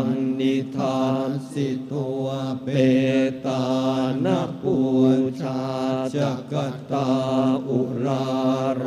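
Buddhist monks chanting a Pali blessing in unison: a steady, low, droning recitation with syllables changing about every half-second to a second.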